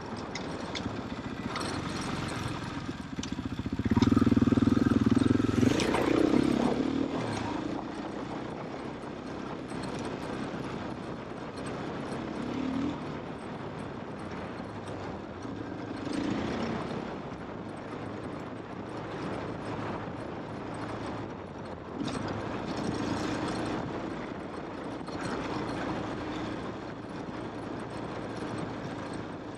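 KTM off-road motorcycle engine running on a trail ride, revving up loudly about four seconds in and then easing back, with further smaller rises in revs later and wind and road noise over it.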